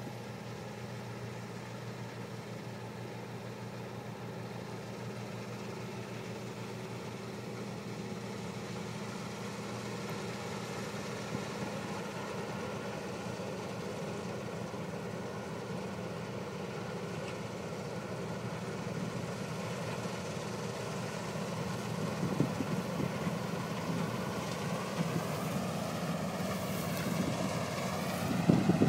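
New Holland TC5070 combine harvester running steadily under load while harvesting barley. Its engine drone grows louder in the last third, with a few knocks and a wavering pitch near the end.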